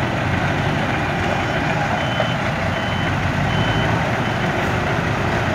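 Sanko MST M544 backhoe loader's diesel engine running steadily under work, with its reversing alarm giving a few high, evenly spaced beeps around the middle.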